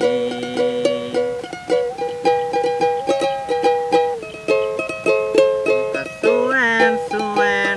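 A small acoustic plucked-string instrument, ukulele-like, strummed and picked in a song's instrumental gap, with a singing voice coming back in near the end.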